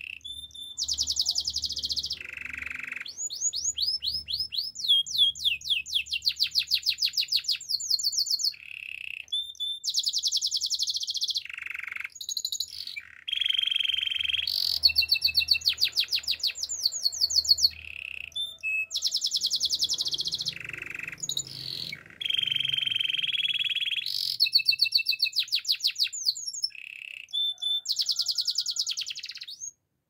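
Canary singing, phrase after phrase of fast trills and runs of quickly repeated high notes, with short breaks between phrases.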